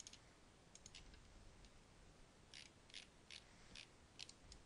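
Near silence with faint hiss and a scattering of faint, short computer mouse clicks, irregularly spaced, about ten in all.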